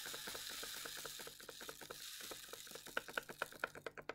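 Small mixed seeds being shaken out of a folded paper packet: a fast run of light ticks and rattles. The ticks grow louder near the end.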